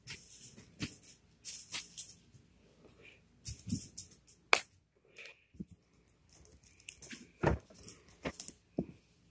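Green plastic K'nex marble-run track pieces clicking and rattling as they are handled and snapped together, in irregular sharp clicks and short clatters.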